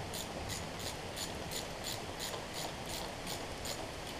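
Hand socket ratchet clicking faintly and evenly, about three clicks a second, as carburetor mounting bolts are run in, over a steady background hiss.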